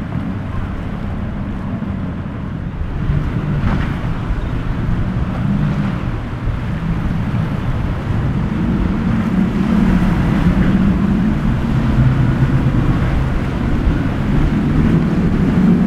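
Outboard engines of a powerboat droning steadily, growing louder in the second half, with wind noise on the microphone and surf behind.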